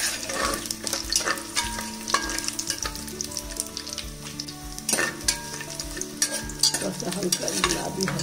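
Whole spices (bay leaf, garlic cloves, dried red chillies and cumin seeds) sizzling and crackling in hot mustard oil in a pressure cooker, stirred with a metal ladle that clicks and scrapes against the pot again and again.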